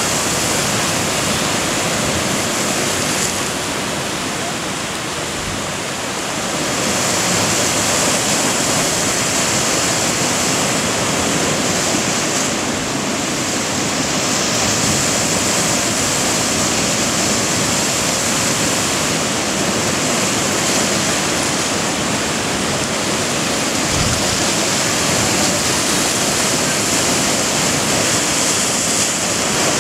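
Seawater cascading into a rock sinkhole on the ocean shore as surf surges across the rock shelf and drains into it: a steady, loud rush of pouring water and waves. The rush eases slightly a few seconds in, then swells again as the next surge fills the hole.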